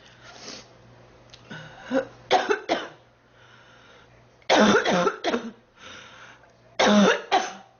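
A girl coughing in repeated fits while ill. There are a few short coughs about two seconds in, then harder clusters of several coughs at about four and a half and seven seconds, with breaths drawn in between.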